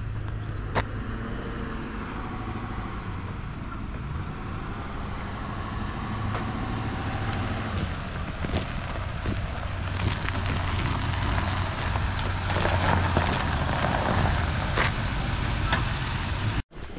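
Pickup truck towing a trailer loaded with a mini excavator drives up, its engine and tyre noise growing louder over the last few seconds, over a steady low hum.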